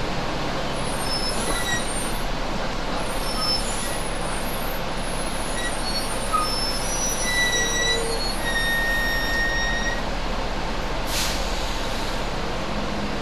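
Three-axle double-decker bus running, heard from on board: steady engine and road noise with short high squeaks and whistles through the middle. A brief hiss of air-brake air being released comes near the end.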